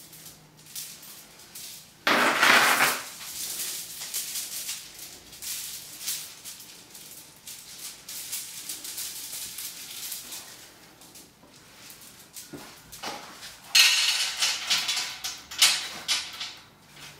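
Steel link chain rattling and clinking as it is handled, with a loud burst of jingling about two seconds in and another near the end, followed by a few clinks as it is hung on a metal rack.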